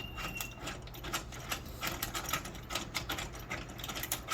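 Hand threaded-insert rivet tool being unscrewed from a freshly set steel insert: a run of quick, uneven metallic clicks as its mandrel is turned out of the insert's threads.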